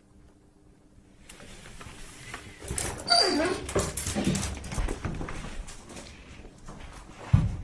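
Basset hound puppy vocalizing with a few whining sounds that fall in pitch, amid rustling and knocks, with a loud thump near the end.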